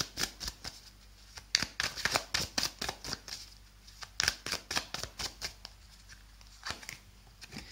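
A deck of tarot cards being shuffled by hand: quick runs of crisp card flicks and snaps, broken by short pauses.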